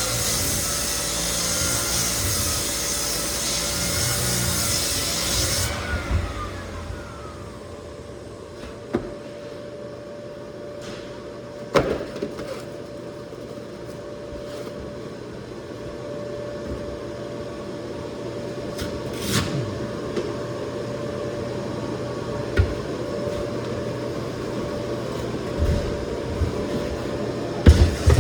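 Lagler Flip floor sander grinding across cupped white oak flooring, then switched off about six seconds in and winding down with a falling whine. A steady hum remains afterwards, with a few scattered knocks and clicks.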